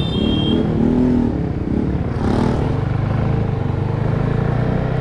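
Motorcycle engine running steadily while riding, with a short rush of noise about two seconds in.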